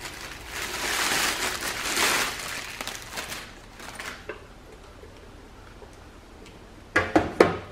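Plastic bags crinkling and rustling as bagged welding accessories and cables are lifted out of a cardboard box, dying down after about three seconds. A few sharp knocks near the end.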